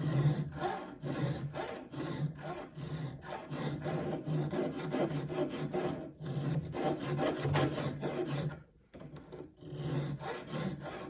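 Hand file rasping back and forth on a steel saw-chain cutter, about two strokes a second, with a short break near the end. The chain is being reshaped by hand into a fast racing chain.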